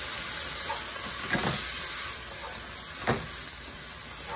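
Pea sprouts sizzling in a hot wok on high heat as they are stirred with a wooden spatula, with a couple of short knocks of the spatula against the pan.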